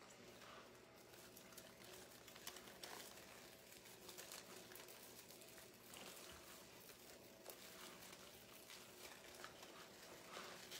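Faint, intermittent rustling and crinkling of wired ribbon and deco mesh being handled and pulled on a wreath frame, over a faint steady hum.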